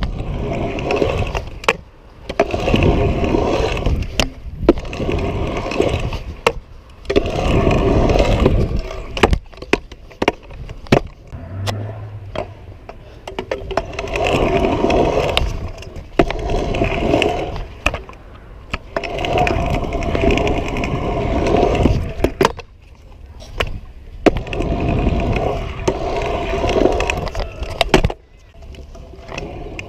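Stunt scooter wheels rolling over hard ground in repeated swells a few seconds long, with sharp clacks of the scooter hitting the ground.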